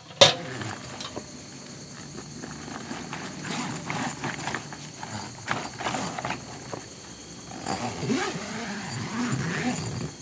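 A sharp metal clack from the small steel wood stove's door, then irregular rustling and crinkling of a clear plastic sheet being handled and hung over a tent doorway.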